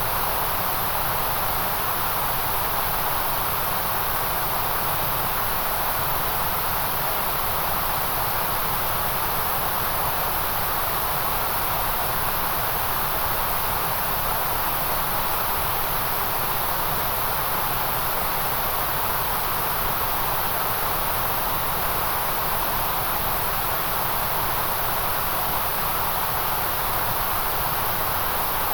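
Steady electronic white noise, a constant hiss with no change in level, its strongest parts a high hiss and a softer rushing band in the middle.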